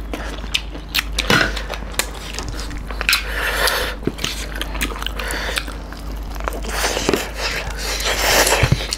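Close-up eating sounds of beef curry and rice eaten by hand: wet chewing with many short mouth clicks and smacks, and a couple of longer wet, squelchy stretches.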